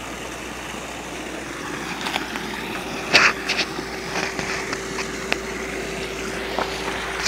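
Steady rush of a stream and small waterfall, with a few short knocks in the first half. A faint steady hum comes in about halfway through.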